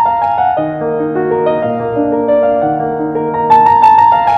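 Background piano music: a quickly repeated high note, then a stepping melody over held lower notes, with the repeated high note coming back near the end.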